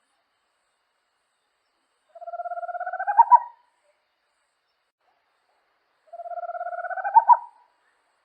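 Small Amazonian owl (corujinha) calling twice, about four seconds apart: each call is a fast trill of notes, rising slightly in pitch for about a second and a half and ending in a few louder, accented notes.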